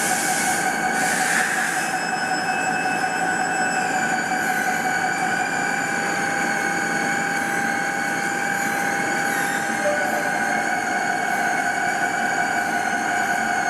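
Okuma MC-60VA vertical machining center running, a steady high-pitched whine of several tones over a hiss. A few of the higher tones step down slightly about four seconds in.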